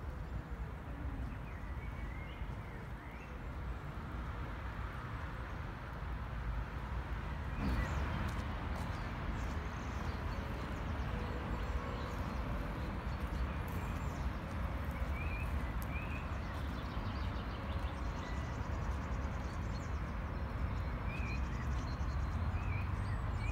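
Outdoor lakeside ambience: a steady low rumble with short bird chirps now and then. The background changes abruptly about eight seconds in, then carries on much the same.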